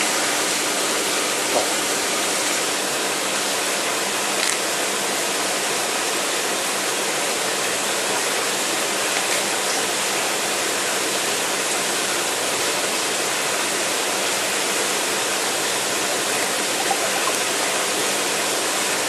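Steady, even rush of flowing, splashing aquarium water, the sound of the tank's water circulation running continuously.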